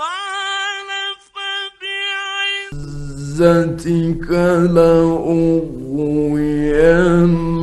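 Quran recitation in the Egyptian mujawwad style from an old 1950s recording. A high sung note is held steady for about two and a half seconds, broken by two short gaps. About three seconds in, a man's lower, ornamented chant of the next verse begins over a faint recording hum.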